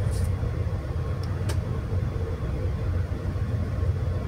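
Steady low machinery rumble with a faint hum above it, and two faint clicks about a second and a half in.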